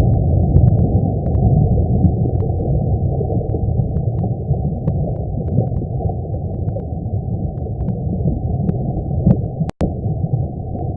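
Steady, low rumbling roar with the highs cut off, presented as the real sound of the Sun: solar data converted into sound. Faint scattered clicks sit above it, and it cuts out for a split second near the end.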